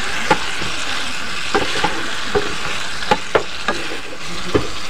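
Prawns sizzling in a masala gravy in a nonstick frying pan, stirred with a wooden spatula that knocks against the pan about eight times in sharp clacks.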